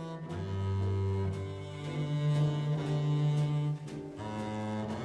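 Instrumental music: slow, low bowed-string notes, cello or double-bass range, each held for a second or two.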